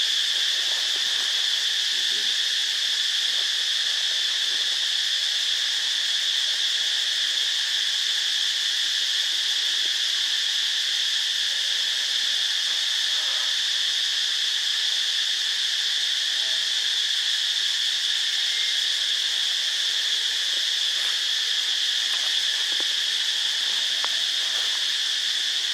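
Steady, unbroken high-pitched chorus of insects, such as crickets or cicadas.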